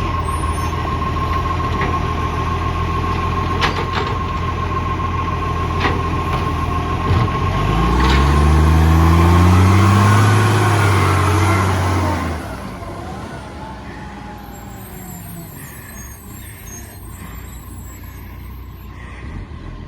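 Garbage truck's diesel engine running with an exhaust leak, with a few sharp clicks over the steady engine note. About eight seconds in it revs up for roughly four seconds, then drops away to a much quieter background.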